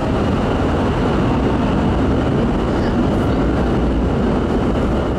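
Steady drone aboard the car ferry Mary Ellen under way: the ship's engines running, with a constant rushing noise mixed in.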